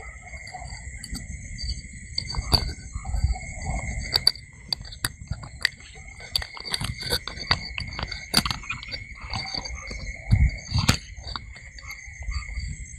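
Night insects calling steadily in a high, continuous chirr. Over it come irregular sharp clicks and knocks, with low rumbling, close to the microphone.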